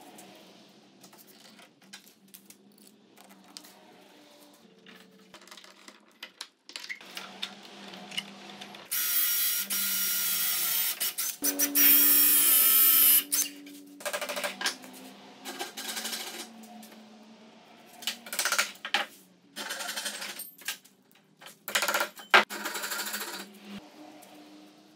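Cordless drill boring into the edge of a hardwood board: a loud steady whine for about four seconds, its pitch stepping higher partway through. Several shorter bursts of sound follow.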